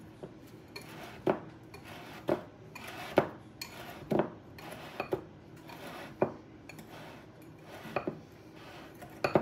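Wire whisk beating a dry flour mixture in a mixing bowl, clinking sharply against the bowl about once a second with soft scraping between.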